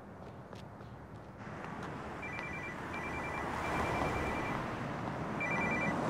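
Mobile phone ringtone: a high electronic two-tone ring repeating in short bursts, in two groups with a brief pause between. It sits over steady city street traffic noise that swells up about a second in.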